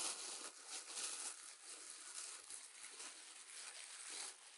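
Brown honeycomb kraft paper wrap and white tissue paper rustling and crinkling as they are pulled open by hand, loudest at the start.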